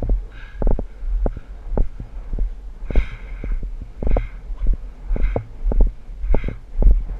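Horse hoofbeats at a canter on turf, heard from a camera riding on the horse: rhythmic thuds and knocks with a heavy beat about once a second and lighter knocks between, over a steady low rumble.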